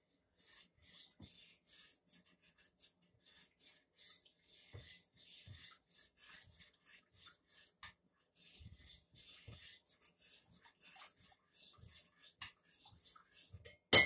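A spoon stirring a thin homemade teriyaki sauce in a bowl: faint, quick scraping strokes against the bowl, about two to three a second, with a few soft knocks. Right at the end a single loud clack as the utensil strikes the bowl or is set down.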